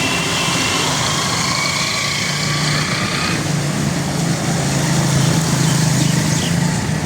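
A motor vehicle engine running, its low hum growing stronger about halfway through, over a steady hiss. A thin high whine sounds through the first half and stops.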